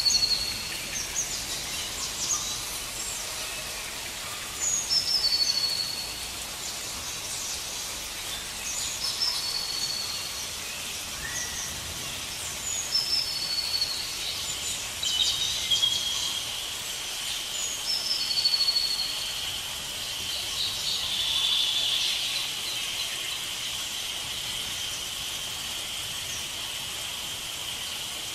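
Rainforest birds calling, one repeating a phrase of quick high notes that drop to a short held whistle every few seconds, over a steady high insect drone that swells past the middle and a constant hiss.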